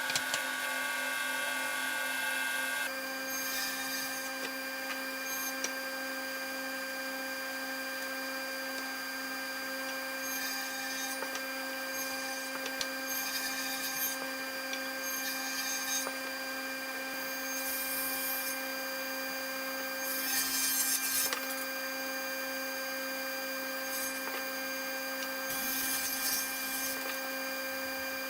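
Router with a straight bit running at a steady pitch, with short harsher bursts every few seconds as it cuts into the wood.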